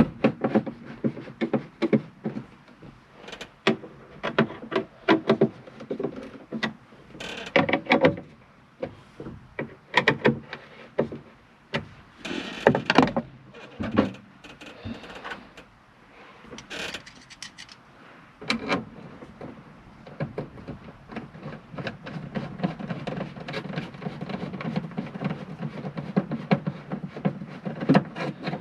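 Hand work fastening a part onto a dump truck with screws: a long run of clicks, knocks and rattles of tools and parts, with a few longer noisy stretches and a steadier low hum in the second half.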